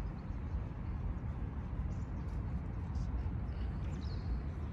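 Outdoor ambience in a park: a steady low rumble with a few faint bird chirps, one about two seconds in and another near the end.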